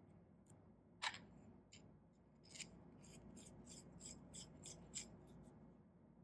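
Broadhead blade rubbed in quick, short strokes across a diamond sharpening stone, about five strokes a second through the second half, after a few scattered scrapes and one sharper click about a second in.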